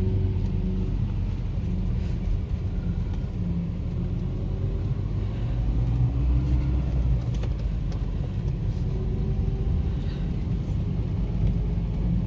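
Mercedes-Benz W123 sedan on the move, heard from inside the cabin: a steady low rumble of engine and road noise, the engine note rising and falling a little as the car pulls. The driver finds the engine responsive and its sound still smooth.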